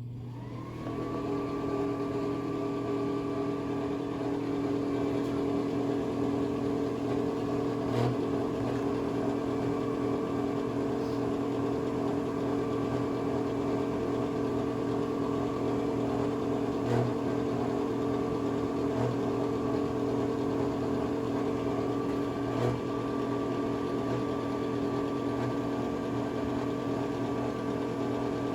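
Bathroom exhaust fan spinning up to speed in the first second, its pitch rising, then running steadily with a hum.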